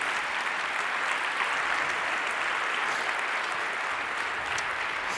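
Audience applauding: many hands clapping in a steady, even wash of applause.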